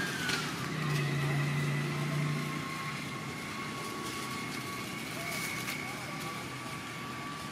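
A steady engine hum with a high whine that drops in pitch about half a second in, then holds level.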